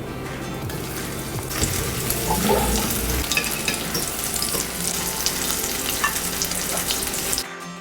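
Goat cheese medallions sizzling in a little hot oil in a frying pan, growing louder about a second and a half in, with a few small clicks over the sizzle. The sizzle cuts off abruptly near the end.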